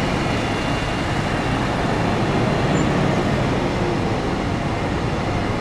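City buses running past on a busway, a steady traffic rumble with no distinct events.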